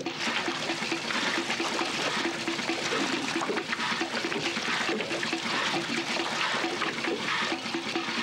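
Water splashing and churning at the side of a boat as sharks thrash at the surface, tearing at hooked fish, with a faint low hum coming and going underneath.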